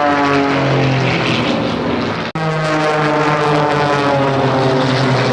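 Propeller-driven aerobatic aircraft flying past in formation, their engine drone falling in pitch as they pass. It breaks off for an instant about two seconds in, then starts higher and falls again.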